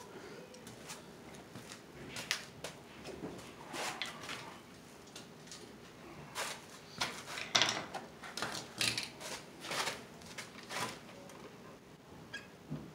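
Irregular clicks, taps and knocks of a person moving about and handling wiring parts and tools. They are busiest in the second half and thin out near the end.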